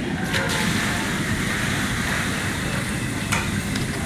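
Steady rain falling, an even hiss, with a couple of short clicks about half a second in and a little past three seconds in.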